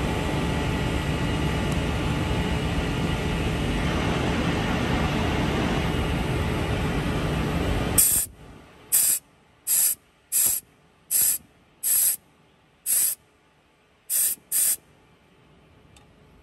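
A steady rushing noise for the first half, cutting off abruptly. Then about nine short, sharp blasts of compressed air, roughly one a second, from a rubber-tipped air blow gun clearing soot out of the Cummins ISL9's intake-manifold sensor ports.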